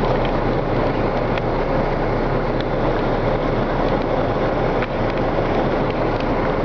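Steady running noise of a 2008 Ford Ranger idling, heard from inside the cab: a low hum under an even hiss.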